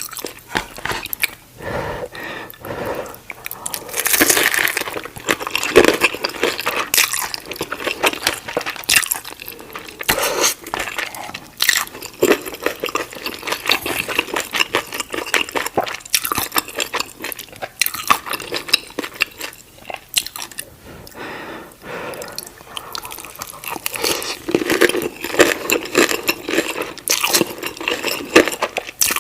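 Close-miked eating of crispy fried cheese momos: bites and chewing with many sharp crunches, busiest in two stretches about four seconds in and near the end.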